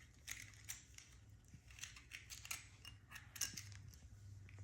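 Faint, scattered light clicks and taps from small plastic toy pieces being handled.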